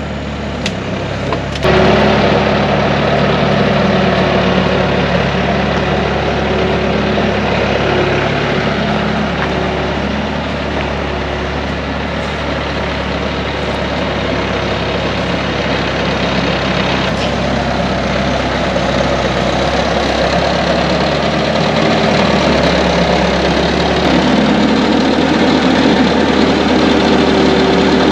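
Loader's engine running steadily as it carries and lowers a car, with a sudden step up in level about two seconds in.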